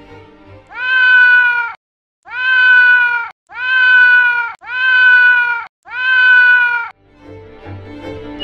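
A cat meowing five times, about a second each with short gaps between. Every meow has the same shape, like one call repeated.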